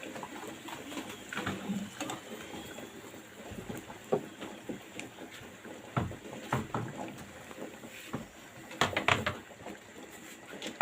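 Irregular light knocks and clicks of objects being handled, with a quick run of several knocks about nine seconds in.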